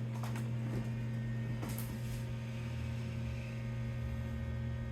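1996 BeBox computer running just after power-on: a steady low hum from its power supply and vent fan, with a couple of faint clicks.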